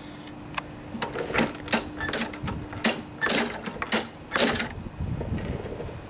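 A run of irregular metallic clicks and rattles starting about a second in, from the push mower's stop lever and its newly fitted cables being worked by hand on the handle.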